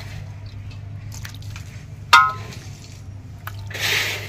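Steel ladle clinking against an aluminium pressure cooker and steel plates while dal is ladled out over rice. There are light taps, one sharp ringing clink about two seconds in, and a soft scrape and pour near the end, over a low steady hum.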